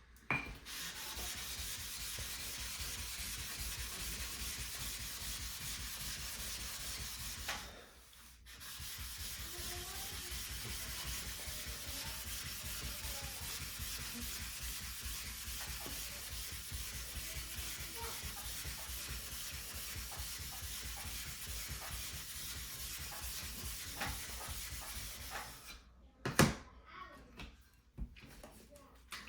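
Wet Shapton ceramic whetstone being lapped flat: a steady gritty scraping of stone rubbing back and forth against the rough side of a flattener. The scraping stops briefly about a quarter of the way in, resumes, and near the end gives way to a few sharp knocks as the pieces are handled.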